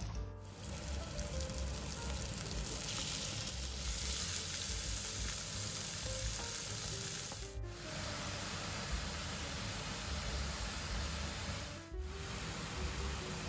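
Chopped shallots and garlic, then minced meat, frying in oil in a nonstick pan: a steady sizzle with two brief dips, past the middle and near the end.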